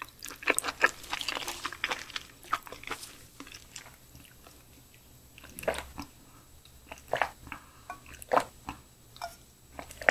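Close-miked eating and drinking sounds: quick wet clicks of liquid pouring from a plastic bottle into a brass bowl, then scattered sips, gulps and chewing.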